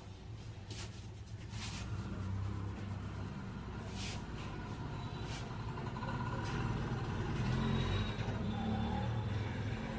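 Steady low rumble of road traffic, swelling a little in the second half, with a few short, sharp clicks or slaps in the first half.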